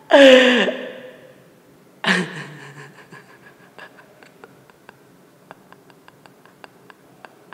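A woman sobbing: a loud wailing cry that falls in pitch right at the start, another sob about two seconds in, then a run of small irregular clicks as she catches her breath.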